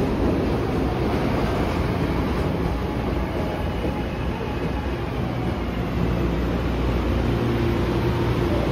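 SEPTA Market–Frankford Line subway train running on the track in the underground station: a steady rail noise that holds an even level, with a faint steady tone coming in near the end.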